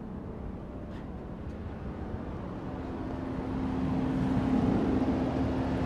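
A vehicle engine running steadily with a low hum that grows gradually louder, a steady higher tone joining about halfway through.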